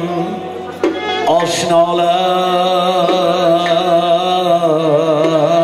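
Live Uzbek band music with electric guitar and synthesizer keyboard. A steady low note is held underneath, and from about a second in a long, wavering melody note carries on with vibrato.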